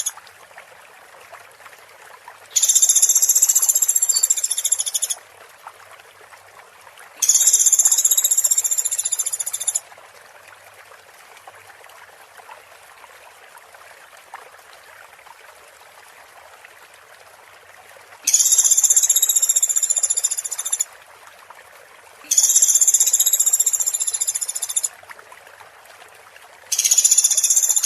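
A high, buzzy trilling call repeated in bursts of about two and a half seconds, five times with uneven pauses, played as a songbird training (masteran) recording. Under it runs a faint steady water trickle.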